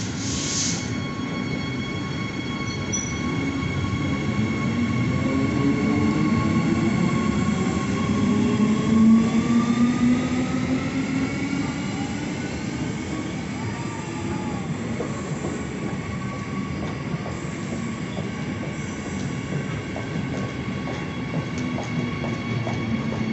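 Transperth electric train pulling away, its traction motors whining in a pitch that rises steadily over several seconds and is loudest about nine seconds in. Steady high-pitched wheel squeal runs under it, and there is a short hiss at the start.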